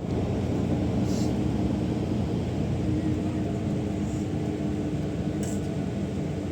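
Steady low rumble of a vehicle's engine running.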